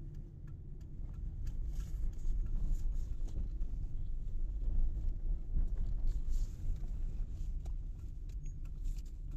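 Steady low rumble of road and engine noise inside a moving car, with a few faint clicks over it.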